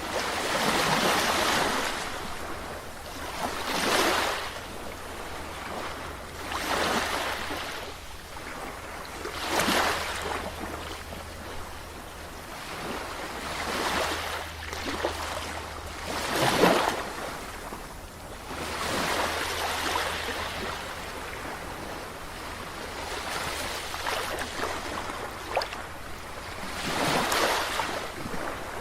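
Ocean surf washing onto a shore, the waves surging and falling away in a steady cycle every few seconds, over a constant low rumble.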